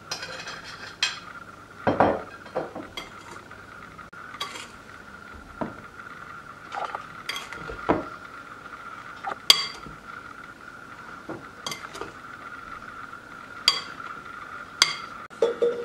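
A metal spoon stirs a crumbly ground walnut and sugar filling in a glass bowl, scraping through it with irregular clicks. Now and then the spoon knocks the glass with a sharp ringing clink, most clearly about halfway through and twice near the end.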